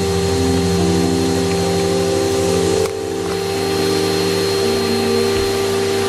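Vacuum cleaner motor running steadily with a constant whine and airflow hiss, dipping briefly about halfway through. Background music plays over it.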